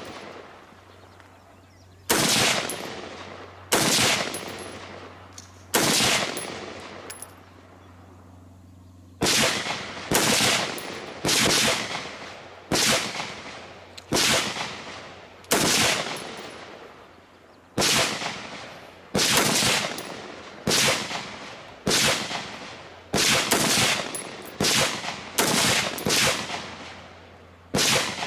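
Single gunshots from a semi-automatic firearm, each with a short ringing tail: three shots a couple of seconds apart, a pause, then a steady string of about one shot a second.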